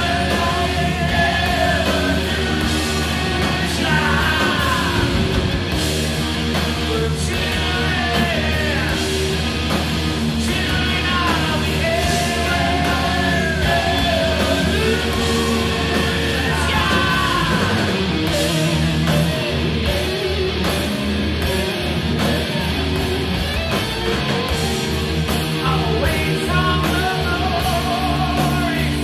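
Hard rock band playing loud live: electric guitars, bass and drums, with the lead singer's vocal lines through roughly the first half and the instruments carrying on with held notes after that.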